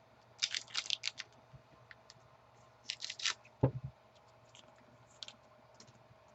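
Trading cards being handled and slid past one another, giving short scraping and flicking noises in two bursts with scattered small clicks. There is a dull thump about three and a half seconds in.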